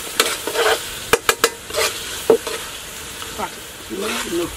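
A metal spoon stirring and scraping food frying in a metal pot, under a steady sizzle, with a few sharp clinks of spoon on pot about a second in.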